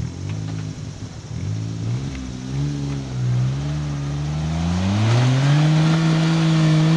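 Lifted Suzuki Jimny's engine labouring under load up a steep dirt climb. Its revs waver during the first few seconds, then rise about four seconds in and hold high and loud.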